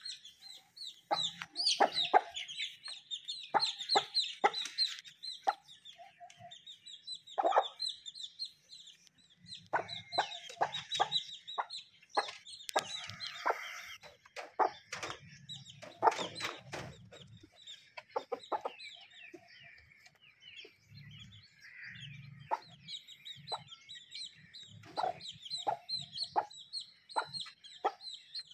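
Aseel chickens clucking in short, separate calls, over a busy chatter of high chirps.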